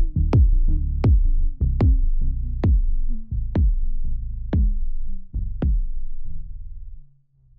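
Techno music winding down: sharp drum-machine hits come further and further apart while a low bass tone slides down in pitch, then the sound fades out and stops about seven seconds in.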